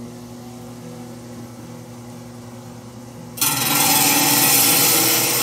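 Hi-Tech Diamond 6-inch trim saw running with a steady motor hum. About three and a half seconds in, its water-cooled diamond blade bites into a thunderegg, and a loud grinding hiss of the cut takes over.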